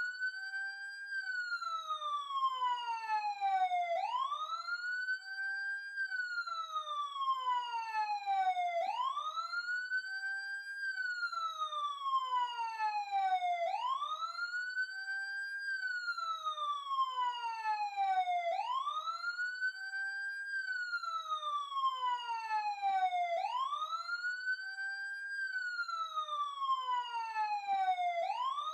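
Police siren sounding a wail, about six times over. Each cycle rises quickly in pitch, holds at the top for about a second, then falls slowly over about three seconds, starting again roughly every five seconds.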